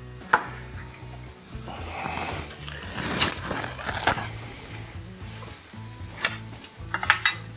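Hand-cranked can opener working around the rim of a can of crushed pineapple: a few seconds of gritty grinding with sharp metal clicks. Food sizzles in a frying pan underneath.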